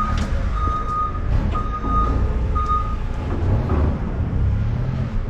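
Vehicle reversing alarm beeping about once a second, with one steady high tone, and stopping about three seconds in. A diesel-type engine rumbles underneath throughout.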